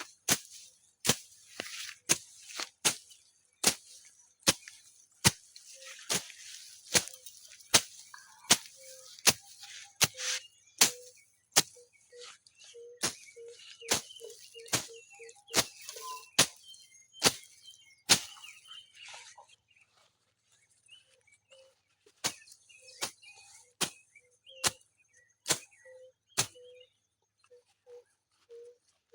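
Repeated sharp strikes of a hand-swung garden tool cutting through grass and weeds, about three every two seconds, pausing briefly about two-thirds of the way in. Birds chirp faintly.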